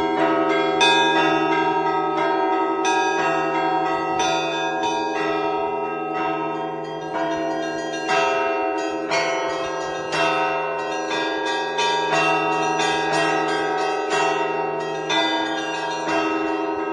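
Russian Orthodox church bells rung by hand in a continuous peal: smaller bells struck in quick, repeating patterns several times a second over the steady hum of the larger bells.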